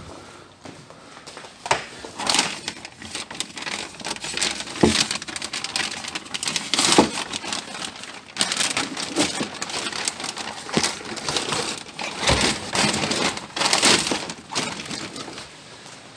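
Plastic sheet crinkling and rustling in gloved hands, in irregular bursts, with a few dull knocks.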